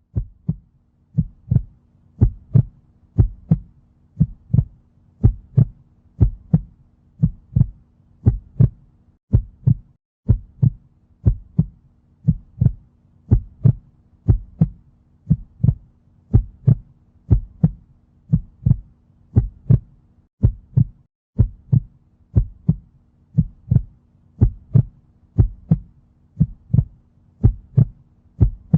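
Heartbeat sound effect: steady paired lub-dub thumps at about one beat a second, over a faint low hum that cuts out briefly twice.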